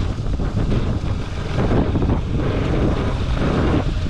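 Bajaj Pulsar RS200's single-cylinder engine running on the move, under steady wind noise on the microphone.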